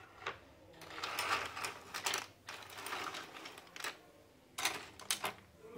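Small plastic toy kitchen pieces clicking, rattling and scraping against each other and the tabletop as a hand sorts through them, with a few sharp clicks near the start and near the end.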